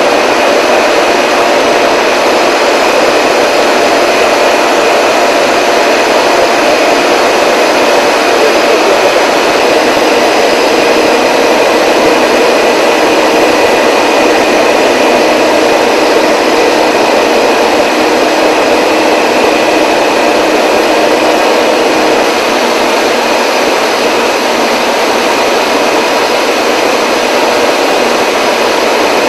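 Wire rod hot rolling mill stands running as they roll glowing steel bar: a loud, steady machine noise with a few faint steady whining tones in it.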